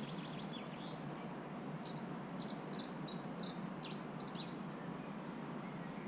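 A small songbird chirping a quick run of short, high notes in the background, from about two seconds in until past four seconds. Under it is a steady, faint low hum of outdoor background noise.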